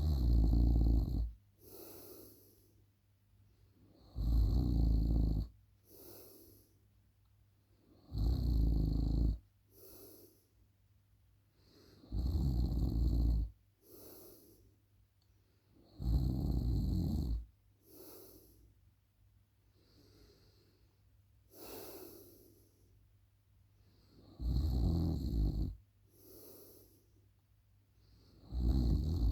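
A sleeping person snoring: a loud, low snore about every four seconds, each lasting a little over a second, with a softer breathy sound between them. Around twenty seconds in, one snore is skipped and only soft breaths are heard.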